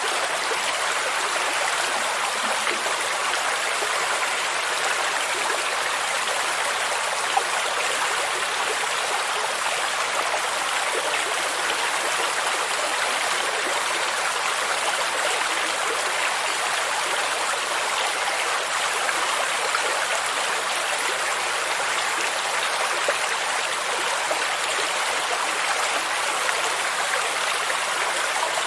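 Water in a stream rushing and splashing, a steady, even flow with no change.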